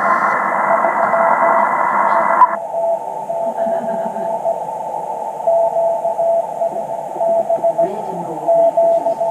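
Morse code (CW) on an amateur radio transceiver: a single steady tone keyed on and off in dots and dashes over shortwave band hiss. About two and a half seconds in, the hiss abruptly becomes narrower and duller as the receive filter is narrowed around the signal.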